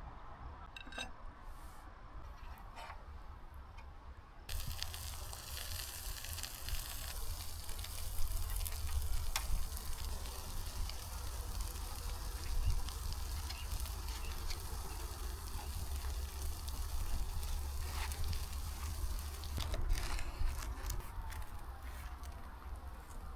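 Sucuk with kaşar cheese sizzling and spitting over hot embers. The sizzle starts suddenly about four seconds in and thins out near the end.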